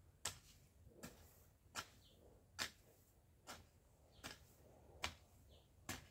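A hand hoe chopping into garden soil: eight sharp strikes in a steady rhythm, a little under a second apart.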